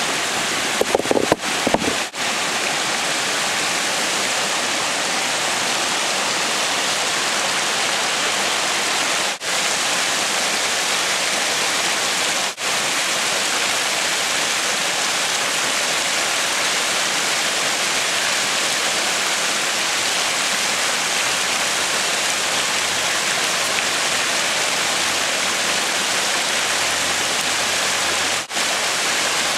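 Creek water rushing steadily, with a few knocks about a second in.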